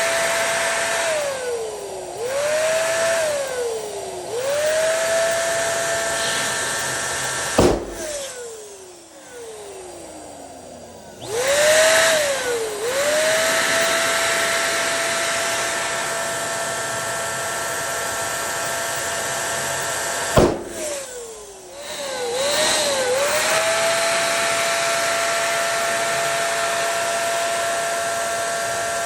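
Electric balloon pump running with a steady whine, stopping and restarting several times so its pitch falls away and rises again. Two balloons burst with sharp pops, about a quarter of the way in and again about two-thirds through.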